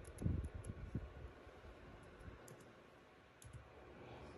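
Keystrokes on a laptop keyboard: a quick run of taps at the start, then a few scattered taps, as text is deleted and retyped in a search field.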